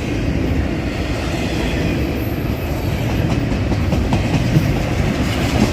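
Intermodal freight train rolling past, with a steady rumble of steel wheels on the rails and some clicking of wheels over the track.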